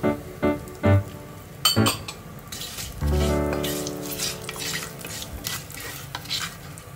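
Dried curry leaves and kasuri methi sizzling in hot oil in an enameled cast-iron pot, stirred with a wooden spatula. A couple of sharp clicks come about two seconds in, and light background music plays over it.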